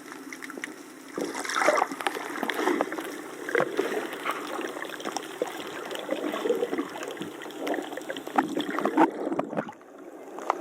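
Water sloshing and splashing irregularly, like small waves lapping at the shore, with a brief lull near the end.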